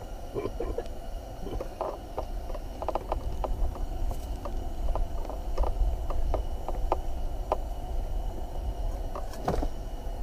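Steady low rumble with scattered light clicks and knocks of fishing rods and gear being handled, and a louder knock and rustle near the end as one angler turns round on his seat.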